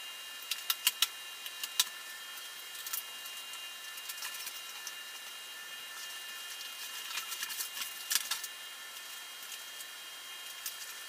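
Cardboard and plastic packaging being handled and pulled off a new road bike's frame: scattered crackles, rustles and sharp knocks, busiest about seven to eight seconds in and ending on a loud snap. A faint steady high whine runs underneath.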